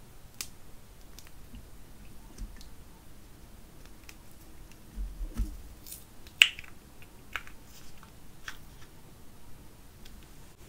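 Soft scraping and small plastic clicks as makeup is scooped out of a small hinged plastic compact with an applicator, then a sharp click about six seconds in as the compact's lid snaps shut.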